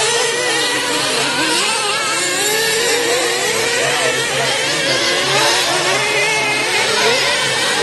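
Several 1/8-scale nitro RC truggy engines revving up and down at once, their high whines overlapping and constantly rising and falling in pitch as the cars accelerate and brake around the track.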